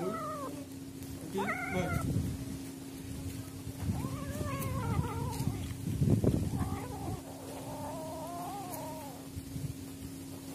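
Kittens yowling and meowing as they squabble over food: several drawn-out calls that fall in pitch, with a louder scuffle about six seconds in and a steady low hum underneath.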